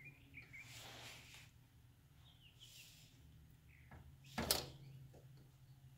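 Faint handling noise of a filter wrench gripping the spin-on oil filter of a 2012 Infiniti QX56, the filter still held fast. There are a few faint chirps and hiss early on, and one sharp click about four and a half seconds in.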